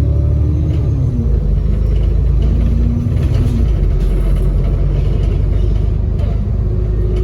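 ADL Enviro400 double-decker bus under way, heard from on board: steady diesel engine rumble with a turbo whistle, and whining tones that shift pitch about a second in and again near the end as the bus changes speed.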